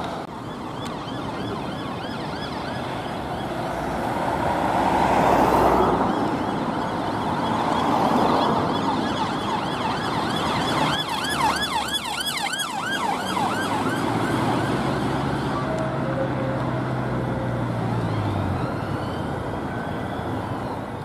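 Police car siren sounding in slow traffic, switching between a fast yelp, loudest about eleven to fourteen seconds in, and a slower wail near the end, over the noise of idling and moving traffic.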